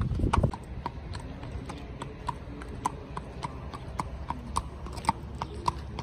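Horse walking on pavement: its hooves clop in an uneven beat of about three sharp knocks a second.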